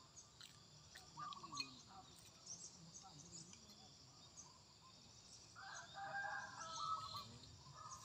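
Faint outdoor background of small birds chirping, with a rooster crowing once for about two seconds, starting about six seconds in.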